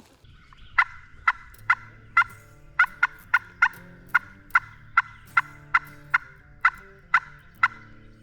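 A series of about fifteen short, sharp turkey calls, clucks or cutts at roughly two a second, with faint background music underneath.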